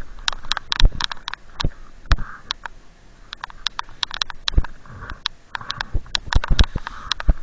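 A snowboard and rider's clothing moving in deep powder, with snow crunching and fabric rustling and many irregular sharp clicks and knocks close to the body-mounted camera.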